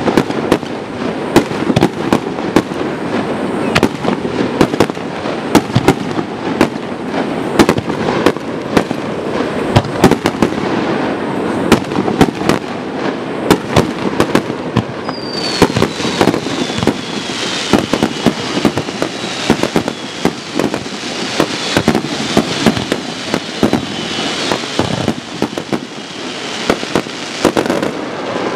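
Fireworks display: aerial shells bursting in a dense, continuous volley of sharp bangs. From about halfway, a high whistle falling in pitch and a crackling hiss join the reports.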